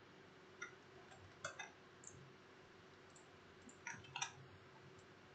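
Faint computer mouse clicks: a few single clicks, then a quick run of three or four about four seconds in, over near-silent room tone.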